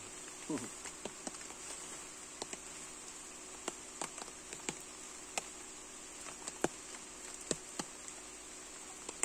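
Steady high-pitched insect chorus, with scattered light ticks and taps about once a second.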